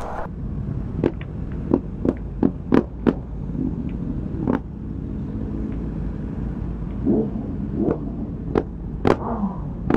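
Motorcycle engines running at low speed as a group rides off in traffic: a steady low rumble broken by a string of short sharp knocks, several in the first few seconds and more near the end.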